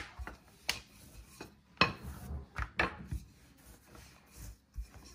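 Wooden rolling pin rolling out flour tortilla dough on a stone countertop: a low rolling rumble, broken by several sharp clacks as the pin knocks against the stone.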